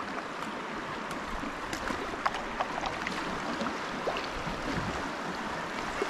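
Shallow river water running over rocks in a riffle: a steady rush with scattered small splashes and drips.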